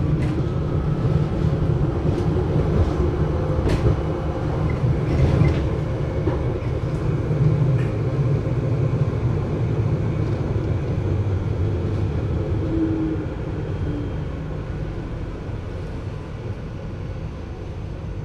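GT6M low-floor tram running, a steady, heavily muffled low rumble with a few sharp clicks and knocks in the first half, getting gradually quieter over the last several seconds.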